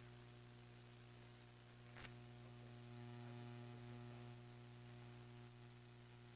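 Near silence: a faint, steady electrical mains hum on the audio line, with one faint click about two seconds in.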